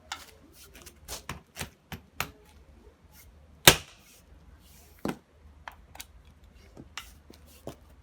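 Sledgehammer striking a plastic-coated steel bicycle D-lock held in a vice: one heavy blow a little under four seconds in, the loudest sound, and a lighter knock about a second later, among several smaller knocks and clicks.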